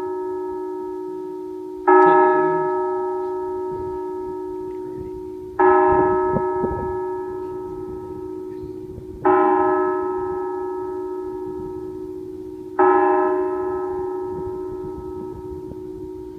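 A single church bell tolling the hour: one stroke about every three and a half seconds, each ringing out and slowly fading before the next, four strokes with a fifth right at the end.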